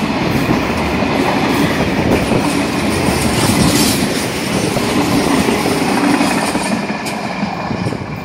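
Freight train's tank-container and flat wagons rolling past close by, wheels clattering over the rails. The sound eases a little near the end as the last wagons pull away.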